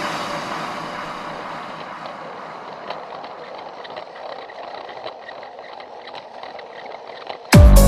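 A Plarail battery-powered plastic toy train running along its plastic track with faint irregular clicks, under a hissing wash that slowly fades away. Loud electronic dance music cuts back in near the end.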